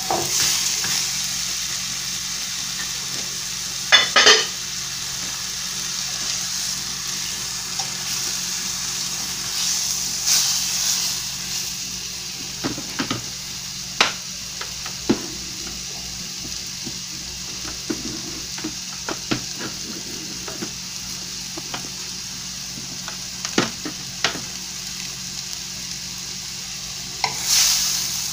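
Lamb tenderloins sizzling steadily in curry-seasoned oil in a stainless steel frying pan, with a fork clicking against the pan now and then as the meat is turned.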